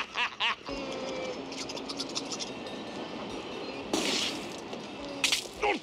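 Two men laughing briefly, then a steady background hum of street noise with faint steady tones. About four seconds in comes a short, sharp exhaled puff, as of a smoker blowing out smoke, and near the end two falling vocal sounds.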